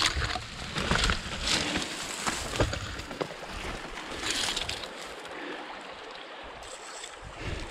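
Dry grass and scrub rustling, crackling and brushing against a person and a handheld camera as they push on foot through thick vegetation, with footsteps. The noise comes in irregular crackly bursts, heaviest in the first three seconds and again about four seconds in.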